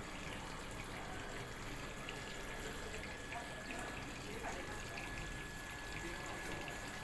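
Water running steadily into a washing machine as it fills, with a faint steady high tone over it.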